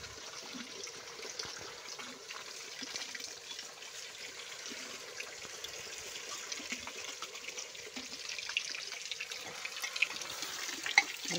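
Chicken pieces sizzling in hot oil in an aluminium pot over a wood fire, a steady hiss with small pops and crackles. Near the end a spoon stirs the meat, adding a few clinks and scrapes against the pot.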